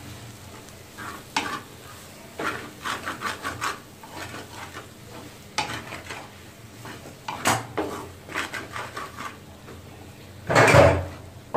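Black spatula stirring and scraping vegetable samosa filling around a metal frying pan in uneven clusters of strokes, with the filling frying in the pan. The longest, loudest scrape comes near the end.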